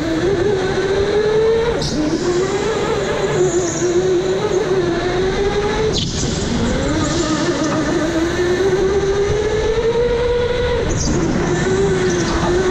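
Electric go-kart motor whining under the driver, rising in pitch as the kart speeds up along the straights and dropping as it slows for the corners, three times over. A few short knocks come through, the sharpest about six seconds in.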